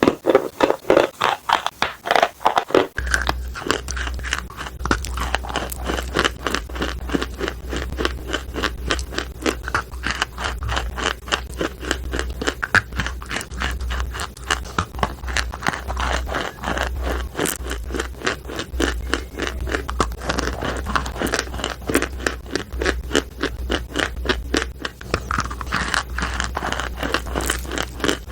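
Chalk being chewed close up: soft, dense crunching, several crunches a second. A steady low hum joins about three seconds in.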